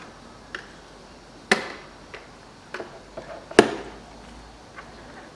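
Plastic spring latches on a Mercedes-Benz W211 air filter housing cover snapping open as they are pried with a flat screwdriver. Two loud sharp clicks about two seconds apart, with lighter ticks and taps of the screwdriver against the plastic between them.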